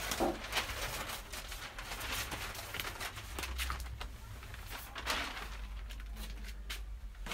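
Large flip-chart paper sheets rustling and crackling as a used sheet is lifted and folded back over the board, with scattered light clicks of handling.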